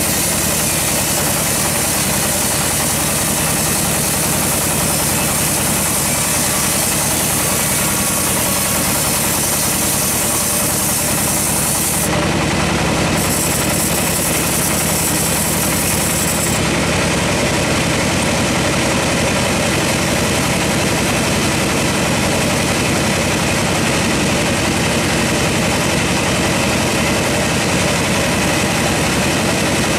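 Large band sawmill running, its blade cutting lengthwise through a teak log with a steady, loud machine noise over a low hum. The sound shifts abruptly twice, about twelve seconds in and again a few seconds later.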